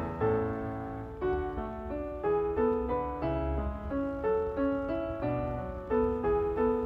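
Background music: a piano playing a melody of separate struck notes at an even pace.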